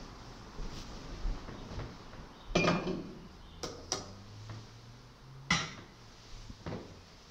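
Metal and glass altar vessels clinking and knocking as they are handled and set down. There are about five separate clinks; the loudest two, about two and a half and five and a half seconds in, each ring briefly.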